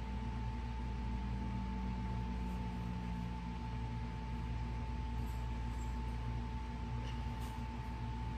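Steady background hum in a small room, with a thin high whine held at one pitch and a few faint ticks.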